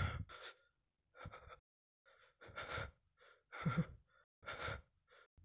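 A cartoon boy's voice gasping: about five short, breathy gasps roughly a second apart, ragged breathing.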